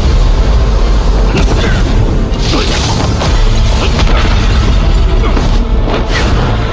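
Fight-scene sound effects: booming blasts and rushing surges over a constant low rumble, layered with a dramatic music score.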